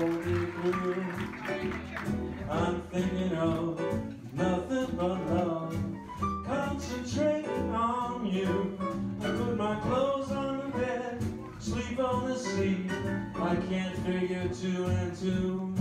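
A man singing into a microphone over a live band, with acoustic guitars strumming along.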